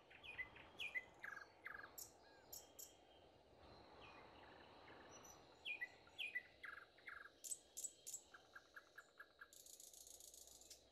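Faint rural ambience: scattered short bird chirps and insects chirring, with a buzzy insect trill near the end.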